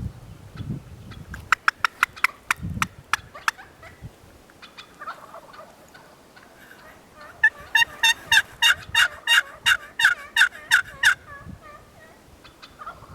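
Turkey calling: a quick run of sharp clucks, softer notes, then a loud, even series of about fourteen yelps, some four a second, in the second half.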